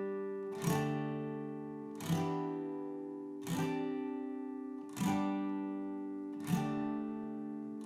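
Background music: acoustic guitar chords strummed about every one and a half seconds, each left to ring out and fade.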